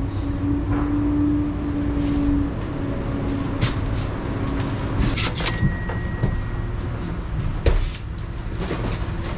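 Cardboard boxes being carried, shifted and set down inside an enclosed cargo trailer: scattered knocks and thumps, the loudest near the end, over a steady low rumble.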